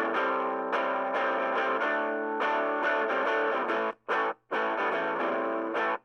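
Electric guitar played through a Marshall MS-4, a battery-powered 1-watt micro-stack amp, with its gain at about a quarter: strummed chords with light overdrive. The chords are choked off briefly twice about four seconds in, and again near the end.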